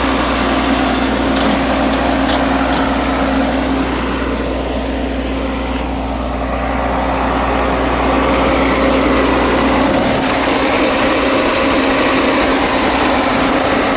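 Cummins 5.9-litre diesel engine of a Blaw-Knox PF-4410 asphalt paver running steadily, holding one even pitch.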